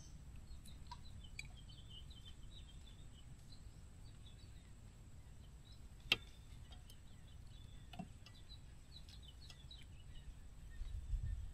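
Faint, scattered bird chirps over quiet outdoor ambience on calm water, with a single sharp click about six seconds in and a softer one about two seconds later.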